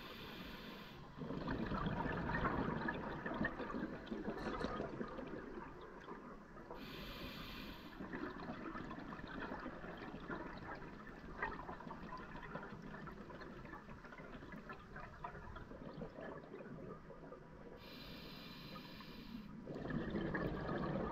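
Scuba diver's regulator heard underwater: three short hissing inhalations, each followed by a long rush of exhaled bubbles.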